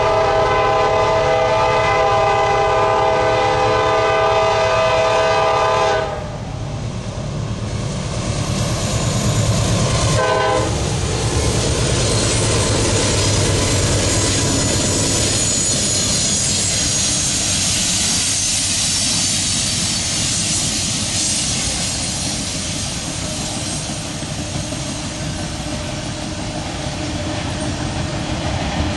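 Freight train's diesel locomotive air horn sounding a chord until about six seconds in, and again in a short blast about ten seconds in. After that come the rumble of the locomotives passing close and the wheels of the following autorack cars clacking over the rail joints.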